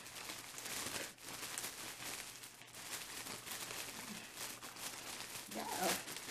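Black plastic mailer bag rustling and crinkling as hands pull and tug at it, trying to get the clothes out of a package that hasn't opened all the way.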